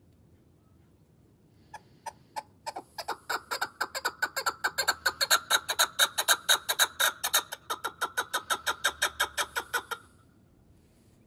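Chukar partridge giving its chuck-chuck rally call: a few spaced notes, then a fast run of about five or six notes a second for some seven seconds, loudest in the middle, breaking off suddenly near the end.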